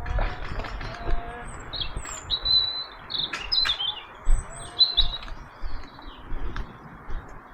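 Small birds chirping and calling in short high notes throughout, with two sharp clicks a little past three seconds in and low thuds underneath.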